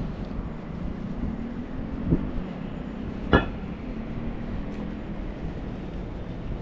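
Steady low rumble of city street noise with passing traffic. A short knock comes about two seconds in, and a sharper, louder knock a second later.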